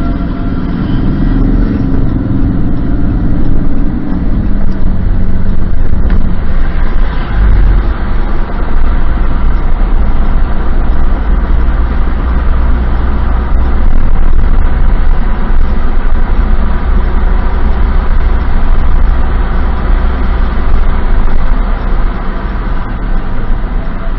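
Loud, steady roar of tornado wind, with heavy rumbling as the wind buffets the microphone. A low hum with a clear pitch runs under it for the first four seconds.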